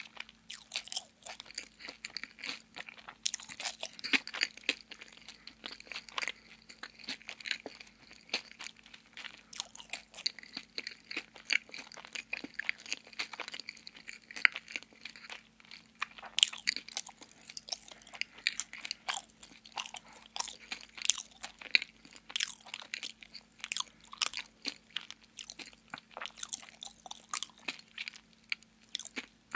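Close-up chewing of donut: a dense, uneven run of wet mouth clicks and soft crunches, busiest in the second half.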